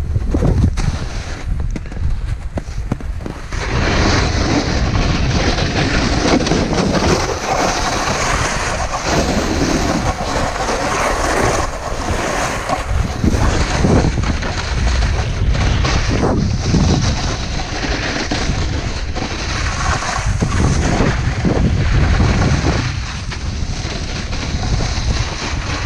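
A snowboard's edge scraping and hissing over snow as the rider carves downhill, in swells that rise and fall every second or two, with heavy wind buffeting on the microphone of a pole-held action camera.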